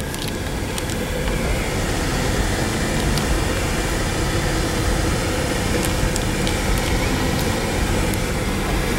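Steady low noise of a car heard from inside its cabin, with a few faint clicks.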